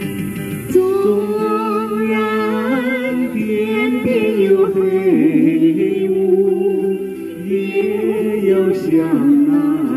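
A man and a woman singing a Chinese song as a duet into handheld microphones, amplified, over held accompaniment notes.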